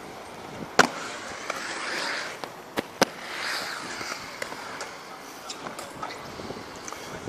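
Inline skate wheels rolling on smooth concrete, a hiss that swells and fades as the skater rides the transitions, with a few sharp clacks against the concrete, the loudest about a second in and twice around three seconds in.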